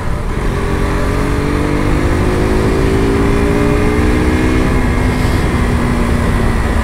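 KTM RC 200 sport bike's single-cylinder engine pulling under acceleration, its note rising slowly for about four seconds and then settling to a steady cruise, heard over heavy wind rumble on the bike-mounted microphone.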